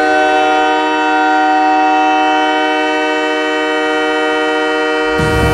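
Montreal Canadiens goal horn sounding one loud, steady chord of several tones. About five seconds in, the goal song's drums and bass come in under it.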